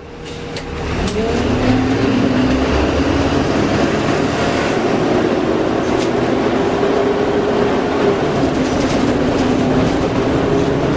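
Cummins M11 straight-six diesel of a Dennis Dragon double-decker bus running under way, heard from close to the rear radiator, with its Voith DIWA automatic gearbox. The sound fades in over the first second or two, then holds loud and steady with a few faint clicks.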